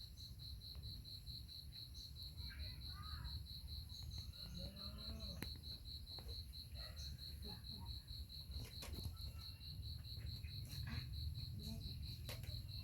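Cricket chirping in a steady high pulsing trill of about five or six pulses a second, over a low rumble, with faint distant voices now and then.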